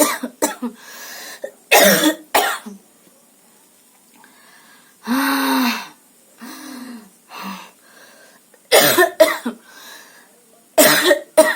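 A woman coughing deliberately in short, harsh fits with throat clearing, forced coughs rather than a real cough. A drawn-out vocal sound comes about halfway through, between the fits.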